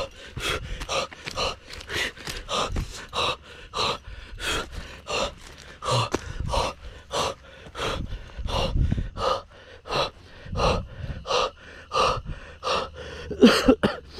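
A person breathing hard in quick, gasping breaths, about three a second, with a louder breath near the end.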